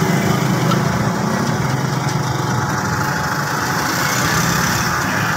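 An engine idling steadily, its low drone a little stronger in the first second or two, with faint clinks of tools.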